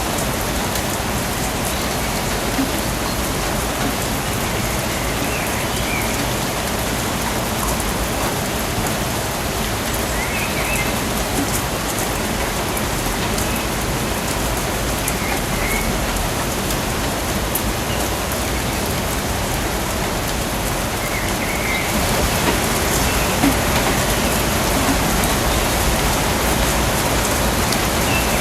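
Steady rain falling on a surface as a dense, even hiss, with a few faint, short, high chirps every few seconds. The rain grows slightly louder about three-quarters of the way through.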